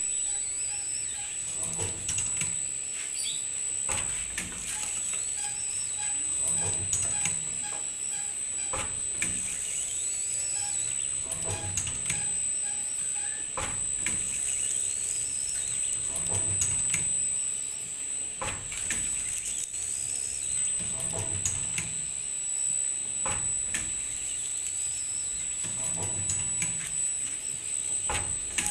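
Semi-automatic screen printing machine running through its print cycle: a knock with a low thud repeats about every two and a half seconds as the squeegee carriage strokes, with squeaks in between and a steady high whine.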